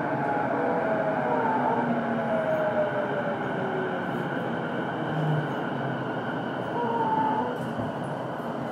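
JR East E233 series electric train heard from on board motor car MoHa E233-1023 while running: steady wheel and rail noise, with the VVVF inverter and traction motor whine gliding in pitch, mostly falling, and briefly rising again near the end.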